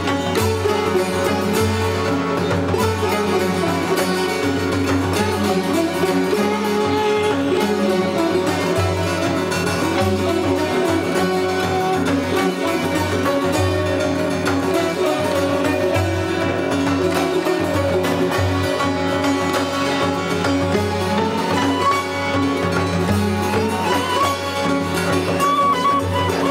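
Persian traditional music played on string instruments, with a sustained melody line that glides upward near the end.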